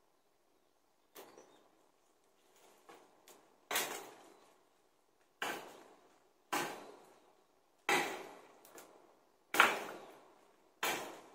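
Repeated blows of a tool striking wood, about one a second. Each hit is sharp with a short ring-out; the first few are light, then they grow heavier.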